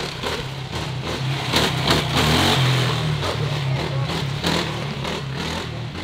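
A motor vehicle engine running and revving, loudest about two seconds in and easing off afterwards.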